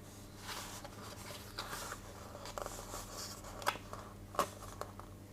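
Faint rustling of a paper book's pages being handled and turned, with two soft clicks less than a second apart in the second half.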